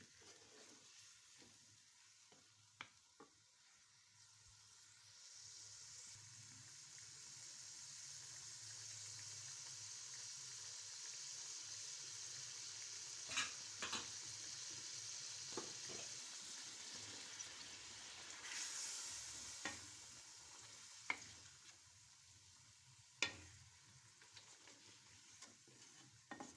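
Chicken frying in a karahi: a steady sizzle that swells about a quarter of the way in and dies down in the last few seconds, with a few sharp knocks of a stirring utensil against the pan.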